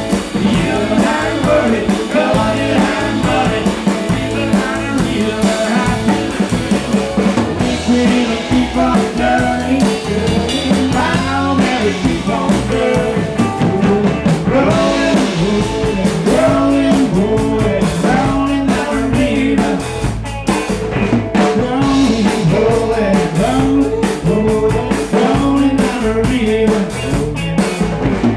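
Live rock band playing: a singer's voice over a steady beat on a drum kit, with guitar.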